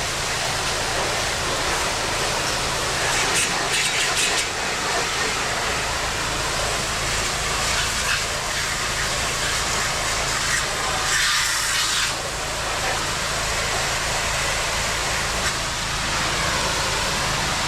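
Pressure washer running with its jet tip spraying water against screens: a steady hiss of spray over the low hum of the machine, getting brighter in short spells a few seconds in and again about eleven seconds in.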